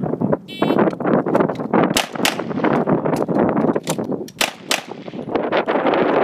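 A short high electronic beep, typical of a shot timer, then a string of handgun shots fired in a reload drill, with a break in the firing for the magazine change.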